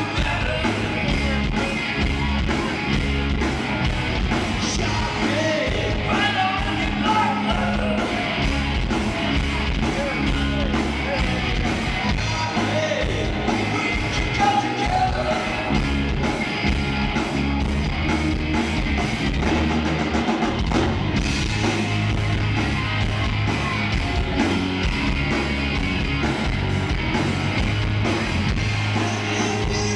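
Live hard rock band playing loud: electric guitars over a steady, driving drum beat, with singing.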